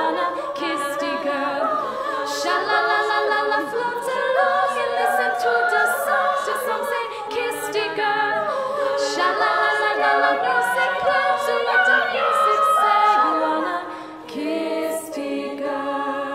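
All-female a cappella group singing: a lead voice over layered backing voices, with no instruments.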